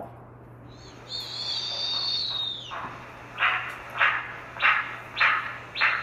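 An owl calling: one long, high, wavering call, then five short calls about two a second.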